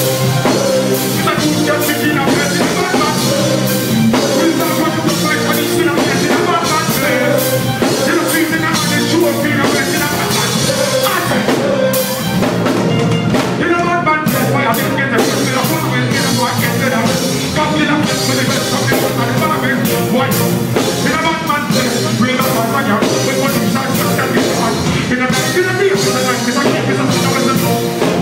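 Live reggae band playing loudly, with drum kit and bass under a singing voice.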